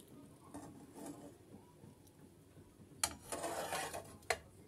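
A kitchen utensil clicking and scraping against cookware as garlic cheese bread is lifted out of the pan onto a plate: a sharp click about three seconds in, about a second of rasping scrape, then another sharp click.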